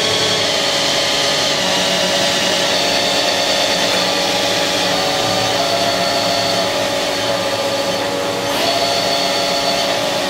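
Spindle of a Haas SL-30T CNC lathe, driven by its 40 horsepower vector drive, running with a steady whine made of several tones. The tones drift slowly lower as the spindle is backed off from about 2,000 RPM.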